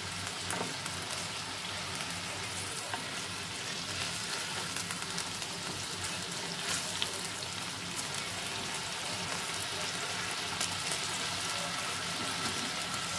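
Boneless chicken thigh steaks frying in a bubbling soy-based sauce in a nonstick grill pan: a steady sizzle with scattered small clicks and pops.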